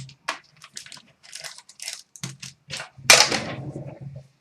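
Packaging of a sealed trading-card box being torn open and handled: irregular crinkling and crackling, with a louder burst about three seconds in.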